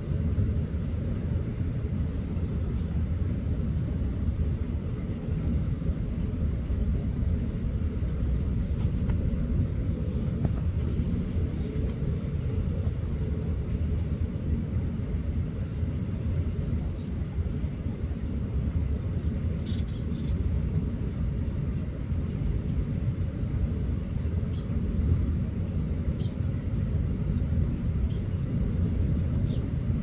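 Steady low outdoor rumble with a few faint, short, high bird chirps in the second half.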